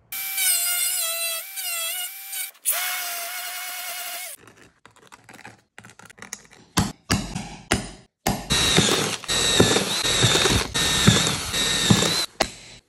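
Cordless drill whining in two short runs, then light knocks and scrapes as the hole positions are marked, then the drill boring through the rusty steel seat pan for about four seconds, rattling and whining under load.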